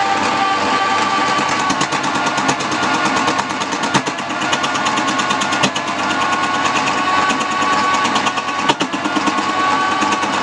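Wood-turning lathe running with a steady motor whine, overlaid by a fast, continuous ticking and rasping of a turning tool cutting the spinning wood.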